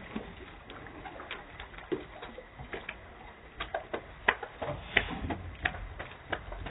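Slowed-down, lowered-pitch sound of a wet Yorkshire terrier climbing out of a pool and walking on a wooden deck: irregular sharp taps and clicks, with a few low thuds in the second half.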